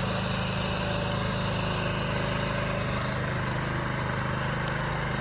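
Small gasoline engine of an Equipter debris hauler running steadily at idle, a constant low hum with no change in speed.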